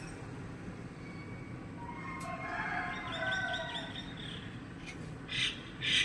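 A bird calls: a run of wavering whistled notes about two seconds in, then two loud, short, harsh calls near the end, over a steady low background rumble.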